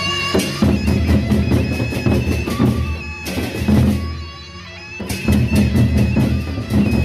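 Gendang beleq ensemble playing: the large double-headed Sasak barrel drums are beaten in fast interlocking strokes, with a steady held high tone and clashing cymbals over them. The drumming breaks off for a moment just past the middle, then starts again.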